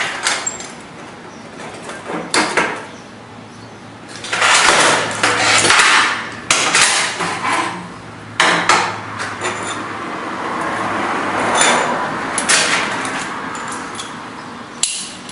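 Locking C-clamp snapping shut on a steel plate and angle iron, then the clamped steel pieces clanking and scraping against a steel welding table in several long stretches.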